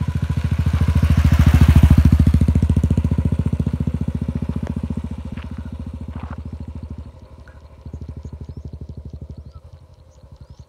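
Royal Enfield motorcycle engine with a steady pulsing beat as the bike rides past, loudest about a second or two in, then fading as it pulls away. The beat drops about seven seconds in and picks up again a second later.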